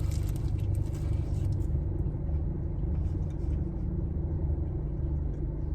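Steady low rumble and hum of a running car, with a few faint clicks over it.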